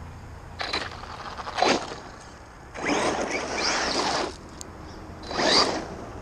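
Electric Traxxas RC car, running on 3S with 18/54 gearing, driven in short bursts of throttle: four rising-and-falling surges of motor whine and tyre noise, the longest lasting about a second and a half near the middle.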